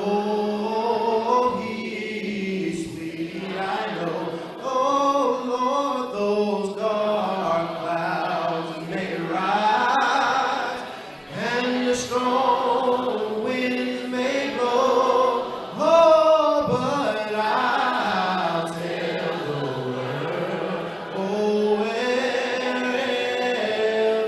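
Slow gospel singing: voices holding long, drawn-out notes that bend and slide in pitch, with no instrument standing out.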